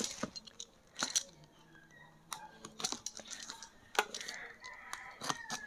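Gaming mouse pad package being opened by hand: scattered light clicks, taps and rustles of packaging, with a few sharper snaps about a second in and again about four seconds in.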